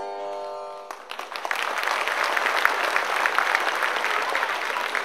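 Held notes of music fade out about a second in, and an audience breaks into applause that quickly builds and carries on.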